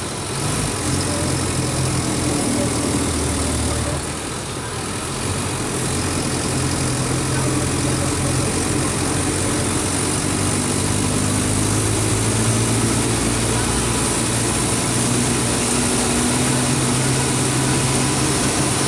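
Mercedes-Benz OF 1722M bus's six-cylinder turbo-diesel engine running steadily at moderate revs. It dips briefly about four seconds in, then rises a little in pitch and holds there.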